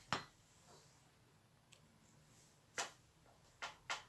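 Four sharp taps of a kitchen knife against a cutting board, one at the start and three close together near the end.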